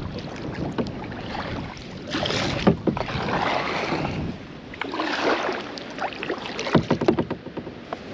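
Kayak paddle strokes: the blade splashing into and pulling through the water twice, about three seconds apart, with sharp drips and clicks, over wind buffeting the microphone.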